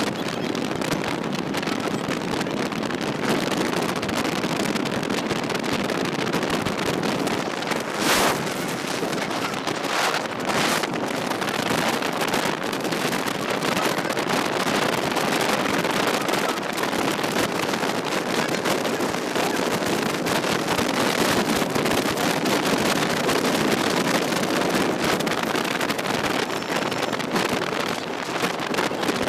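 Wind buffeting the microphone with steady road and engine noise, recorded from the open back of a moving truck on a highway. The noise briefly swells twice, about eight and ten seconds in.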